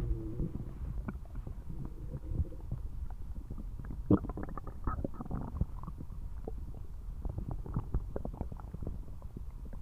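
Human stomach rumbling and gurgling loudly: low drawn-out groans give way to a steady run of short bubbling pops, the loudest about four seconds in.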